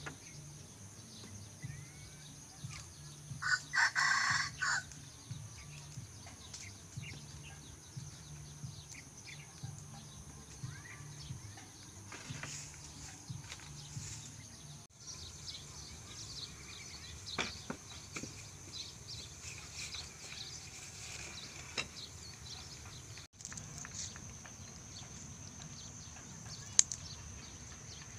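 A rooster crowing once, about four seconds in. Under it, a low steady hum and a few light clicks and knocks, with one sharp click near the end.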